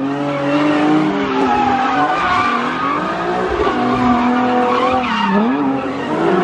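Car engine revving hard, its pitch rising and falling, with tyres squealing as the car skids.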